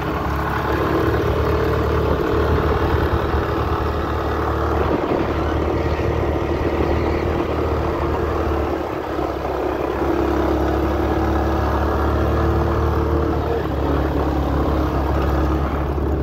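Motorcycle engine running steadily while riding, its note shifting slightly a few times, with wind rushing over the microphone.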